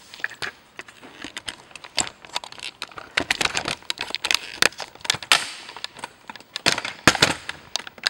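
Handling noise: irregular clicks, taps and knocks of things being moved about on a wooden workbench, thicker and louder from about three seconds in.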